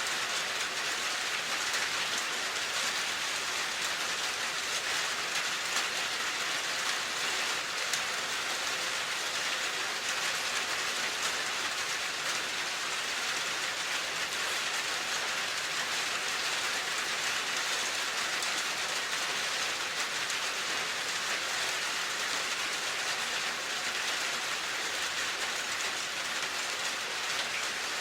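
Steady rain falling, an even hiss of many drops with a light patter.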